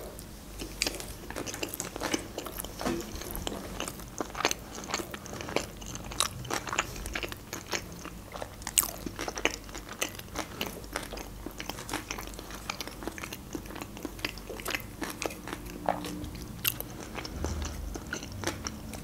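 A woman chewing a mouthful of sushi roll close to the microphone: a steady run of small mouth clicks and smacks.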